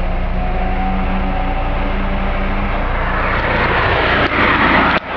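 VW Polo 6N engine running warm through an ABT aftermarket rear silencer: a steady idle, then revved from about three seconds in, louder and rougher, with a brief sharp dip just before the end.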